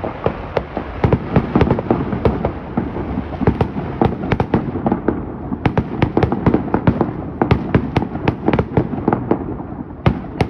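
Fireworks going off in rapid, continuous volleys: many sharp bangs and pops a second over a steady rumble.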